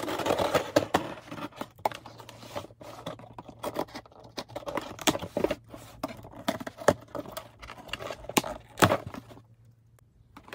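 A cardboard package being opened by hand: irregular scraping, scratching and tearing of tape and cardboard, with sharp clicks, going quiet near the end.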